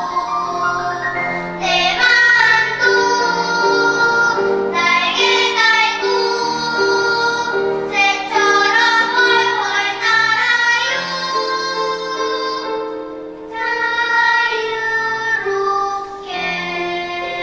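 Children's choir singing a slow song in Korean, with high sustained vocal lines over a repeated accompaniment pattern.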